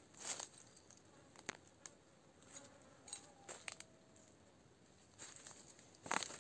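Faint, scattered rustles and crunches of footsteps through leaf litter and undergrowth, with a louder crunch near the end.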